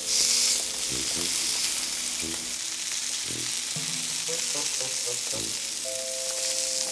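Cornmeal-breaded milkweed pods sizzling as they pan-fry in oil, with metal tongs knocking and scraping in the pan as the pods are turned.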